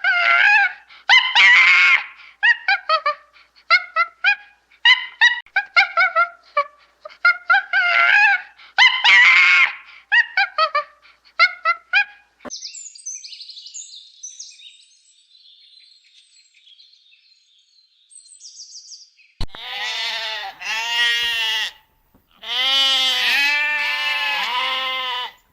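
A run of different animal calls. First, for about twelve seconds, short pitched calls repeat in quick clusters. Then comes faint high chirping, and near the end two long wavering bleat-like calls.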